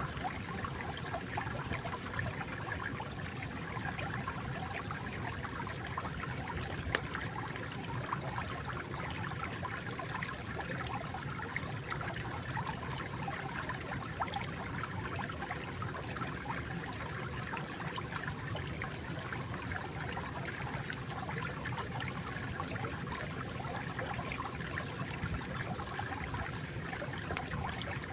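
A small stream trickling and babbling steadily over stones, an even flow of water.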